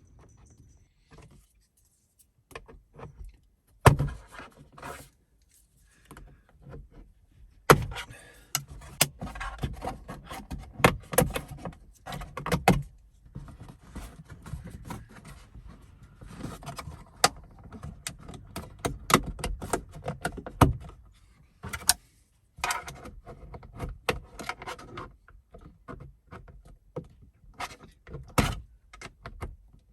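Hands working on plastic car interior trim: irregular clicks, knocks and rattles, with a few sharper knocks about 4 and 8 seconds in and short quiet pauses between bouts.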